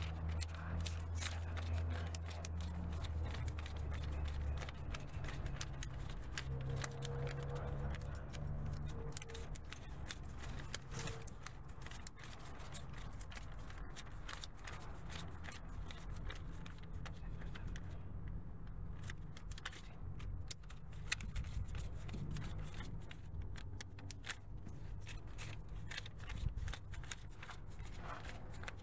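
Close-up handling of paper: rustling and many small clicks and scrapes, with a low hum during the first few seconds.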